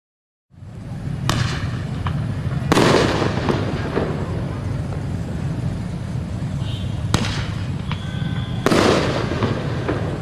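Aerial fireworks going off: a run of sharp bangs a few seconds apart, the loudest two followed by crackling, over a steady low rumble.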